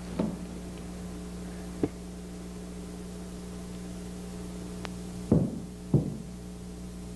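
A steady electrical hum with four dull knocks: one at the start, one about two seconds in, and a louder pair less than a second apart near the end.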